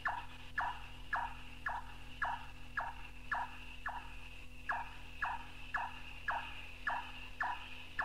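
Large-tailed (white-tailed) nightjar calling: a run of short, sharp 'chop' notes, about two a second, with a short break about halfway. The calls sit over a steady high background buzz and a low tape hum.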